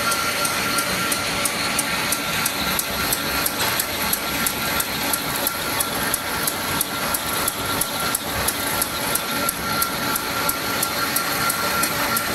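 1959 Will MZAK-Fa-H paper ruling and sheeting machine running at speed, with a steady whine and a sharp, regular clack about three times a second as the paper web is cut into sheets.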